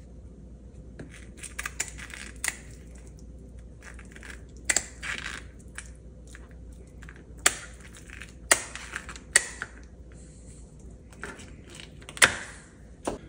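The spiny fins of a whole red snapper being cut off: a series of sharp, irregular crunching snips as the blade goes through the fin spines, with short scraping rustles between them.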